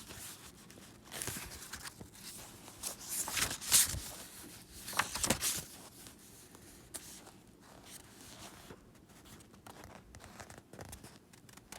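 Paper rustling and crinkling as pages or a printed sheet are handled, in a series of short rustles that are loudest about four to five seconds in and grow fainter later.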